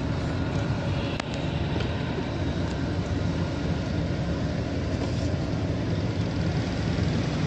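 Suzuki Mehran's small three-cylinder engine running steadily at idle, heard from inside the cabin, with a single sharp click about a second in.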